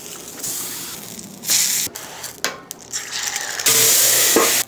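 Homemade pork breakfast sausage sizzling on a hot flat-top griddle as it is pressed flat, with a few metallic clicks. A louder hiss of steam comes near the end, with the patty under a metal dome.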